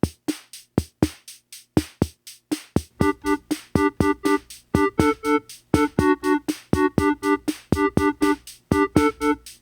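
Background electronic music: a drum-machine beat, joined about three seconds in by short, repeated keyboard chords.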